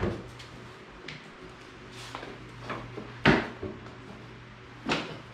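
A handful of sharp metal clunks and knocks, the loudest a little past the middle, as the newly welded rear brake arm and its linkage are worked by hand, over a steady low hum.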